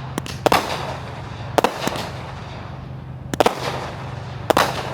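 Fireworks going off: about five sharp bangs at uneven intervals of roughly one to two seconds, each trailing off in a brief echoing crackle.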